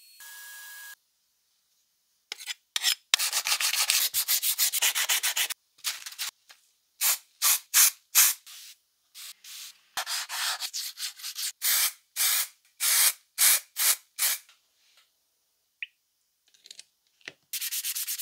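Sandpaper rubbed by hand over a hard plastic handle: a run of quick back-and-forth strokes, then slower single strokes with short pauses, and a last quick burst near the end.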